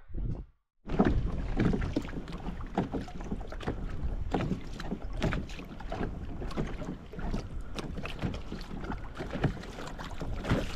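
Water splashing and lapping against a kayak's hull, in an irregular run of small splashes, with wind buffeting the microphone. The sound starts after a brief silent dropout under a second in.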